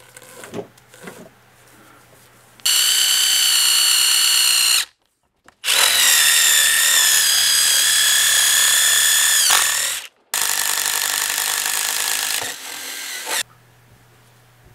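Ryobi One+ HP cordless drill boring into the end grain of a wooden log, its motor whining steadily in three runs separated by short silences. The whine dips in pitch near the end of the second run. A few light knocks come before the first run.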